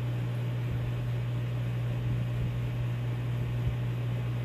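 Steady low hum with an even background hiss; one faint tick a little before the end.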